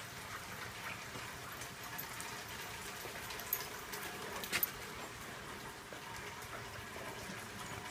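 Steady rain falling, an even hiss, with a few short sharp clicks around the middle.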